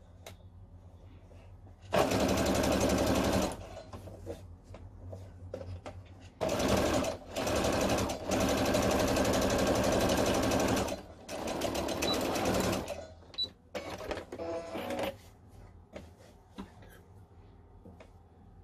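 Domestic sewing machine stitching a seam in about six stop-start runs, the longest about two and a half seconds. Light clicks of handling come in the pauses between runs.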